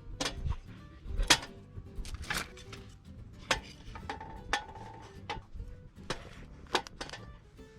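A string of sharp clinks and knocks of tableware and utensils being handled, over steady background music.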